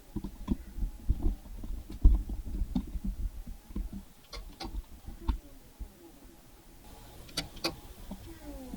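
Irregular clicks and knocks, as of hard parts being handled, busiest in the first half, with two sharp clicks near the end.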